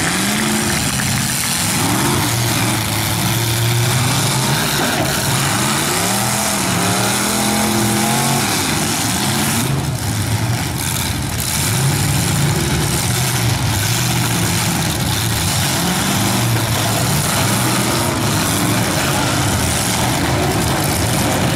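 Demolition-derby car engines running and revving in the arena, several pitches rising and falling over one another throughout.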